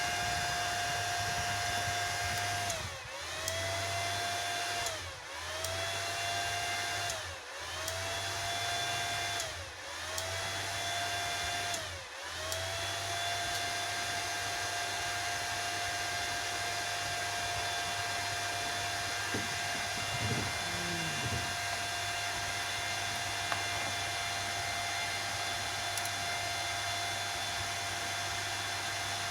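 Welding inverter running on the bench just after being switched on with four new power transistors fitted: steady cooling-fan noise with a constant high whine. Five times in the first half, about every two seconds, the whine and the noise briefly sag lower and then recover; after that they run evenly.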